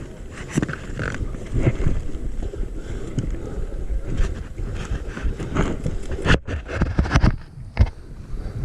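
Wind buffeting the microphone over rustling and handling noise from a moving player's clothing and gear, with a couple of sharp knocks near the end.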